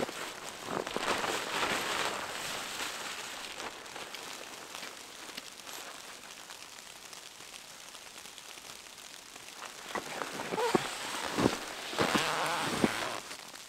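Wind-driven snow hissing and pattering against fabric, stronger for the first few seconds, then easing. Near the end come a few sharp knocks and rustles.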